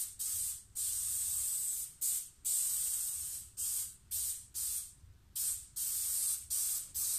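Spray gun fed from a pressurised canister of contact adhesive, hissing in about a dozen short bursts of a second or less as a coat of glue is laid on a laminate sheet.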